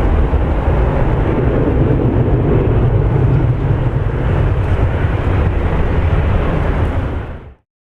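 Jet engines of a Boeing 737-800, CFM56 turbofans, giving a loud, steady, deep rumble that cuts off suddenly near the end.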